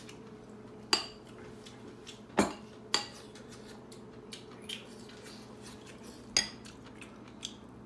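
Sharp metallic clinks of a stainless-steel bowl and dishes being handled, four loud ones spread out with a few fainter ones between, each ringing briefly.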